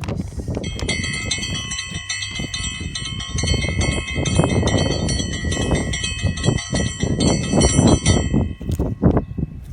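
Strong wind buffeting the microphone in uneven gusts, with a steady high-pitched ringing of several tones at once that starts about a second in and stops near the end.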